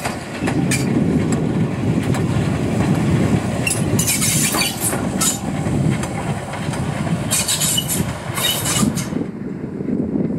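Bagnall No.2 saddle-tank steam locomotive running along the track: a steady low rumble of the engine and wheels, with several bursts of hiss. The hiss stops about nine seconds in.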